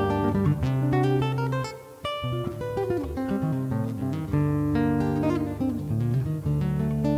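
Solo nylon-string classical guitar played fingerstyle: plucked melody notes over ringing bass notes. The playing drops away briefly just before two seconds in, then resumes with a sharp attack.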